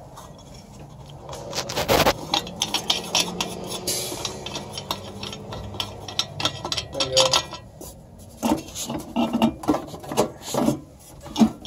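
Wing nut being unscrewed from the metal air cleaner lid on top of the carburettor, with rubbing and scraping. Near the end the lid is worked loose from its housing, with a run of sharp metal clinks and knocks.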